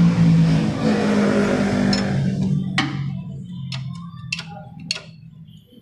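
A loud drone with a few steady pitches fades out over the first three seconds. Then come four sharp metal clinks about half a second apart as the washer, bushing and tools are handled on the rear suspension bolt.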